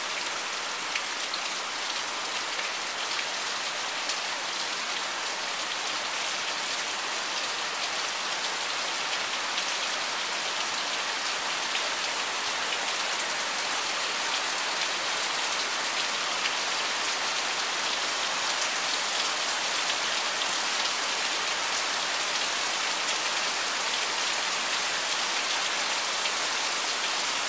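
Heavy monsoon rain falling steadily on a tiled roof, a dense, even pitter-patter of drops on the tiles.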